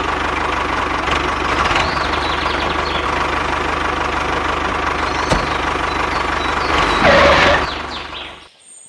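Engine running sound for a toy mini tractor: a steady run with a fast, even beat. It grows louder for a moment about seven seconds in, then fades away to near silence just before the end.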